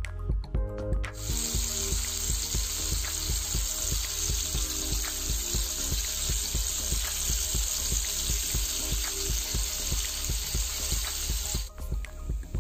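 Hot oil sizzling steadily as flour-coated chicken pieces deep-fry, under background music with a steady beat. The sizzle starts about a second in and cuts off just before the end.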